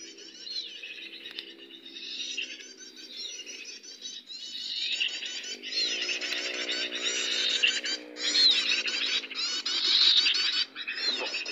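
Small bird singing a rapid, continuous chatter of high chirping notes in several stretches, louder in the second half. A low steady droning tone runs underneath, mostly through the middle and later part.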